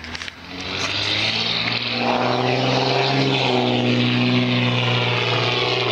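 A steady engine drone that builds up over the first second or two and then holds at an even pitch.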